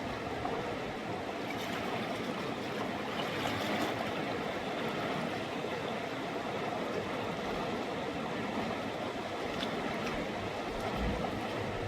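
A mountain river rushing steadily.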